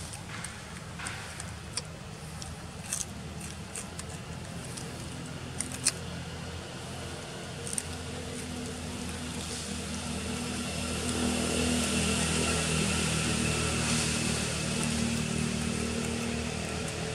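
A vehicle engine running steadily, growing louder from about eight seconds in. A few sharp clicks come in the first half.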